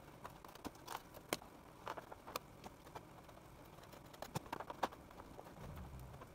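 Scattered light clicks and taps from hand work on a foam board RC plane wing, as a small plastic hobby servo and a craft tool are handled against the board. There is a short quick run of clicks a little after the middle.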